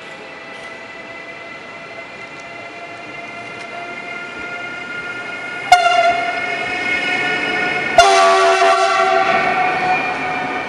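Siemens Taurus electric locomotive (EU44 Husarz) approaching with a passenger train. A steady electric whine grows louder as it comes, then the horn sounds about halfway through, and a louder blast with a lower second note follows about two seconds later. This is the Rp1 'attention' warning signal.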